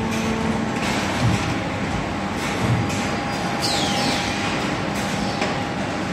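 Steady industrial din of a car-body welding shop, with machinery noise and a faint steady tone. Short hissing bursts recur, and two brief falling squeals come about two-thirds of the way through.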